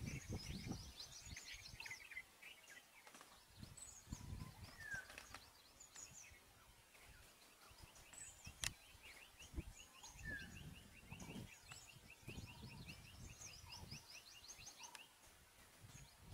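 Faint birdsong: scattered high chirps and trills, with a long run of quick repeated notes in the middle. Low rumbles come and go underneath, and there is a single sharp click about nine seconds in.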